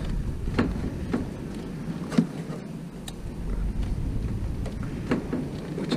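A few short plastic clicks and knocks as the wiring connector of a dishwasher sensor is handled, the loudest about two seconds in, over a low steady rumble.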